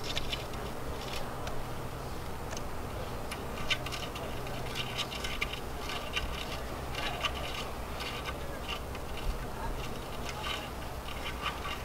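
Faint, irregular ticks and light scraping of a Torx key turning the long mast bolts into a Starboard foil fuselage, the bolts being snugged up but not fully tightened.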